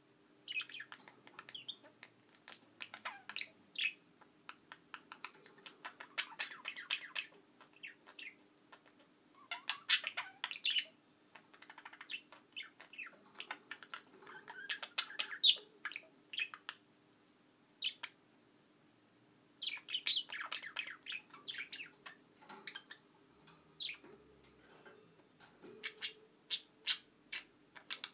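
Budgerigars chattering in quick, irregular chirps and clicks with short pauses between runs.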